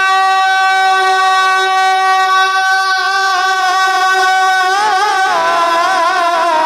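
Male voice singing a naat unaccompanied, holding one long high note for several seconds, then breaking into wavering, ornamented turns near the end.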